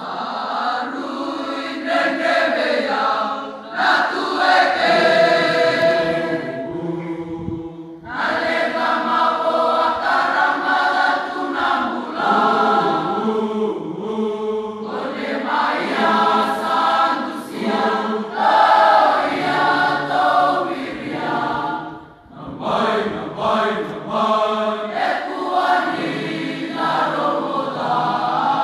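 A large crowd of students singing a chant-like song in unison, in long phrases. The singing breaks off briefly about a quarter of the way in and again about three-quarters of the way in.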